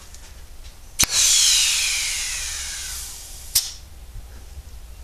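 Compressed air blasting into a seized brake caliper through its brake-hose port: a sharp pop about a second in, then a loud hiss with a whistle falling in pitch that fades over about two seconds, and a second sharp click after it, as one of the pistons is blown out against a softwood block.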